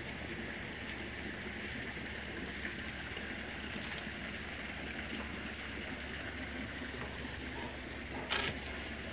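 Steady outdoor background hiss with a low hum underneath, and one brief sharp noise about eight seconds in.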